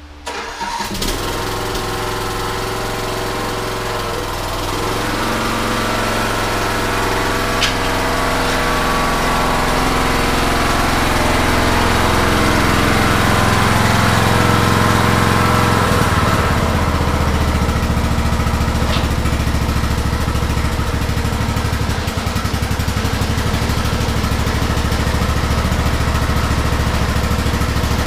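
Troy-Bilt riding lawn mower engine running, growing louder as the mower drives up close and then holding steady. Its pitch shifts a couple of times as the throttle changes.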